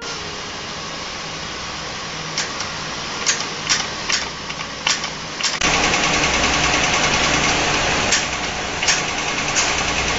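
Pulsed laser welder firing on a metal strip: irregular sharp pops over a steady hiss that gets louder a little past halfway.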